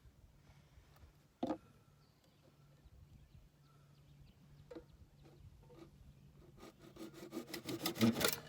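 Hand saw cutting through a plastic sewer pipe. Quick back-and-forth strokes build up and get louder near the end as the cut finishes. A single knock comes about a second and a half in.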